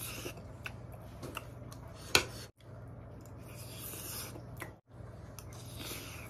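Eating with a metal spoon from a ceramic bowl: several sharp clicks of the spoon, the loudest about two seconds in, with scraping and mouth sounds of eating between them. A low steady hum sits underneath.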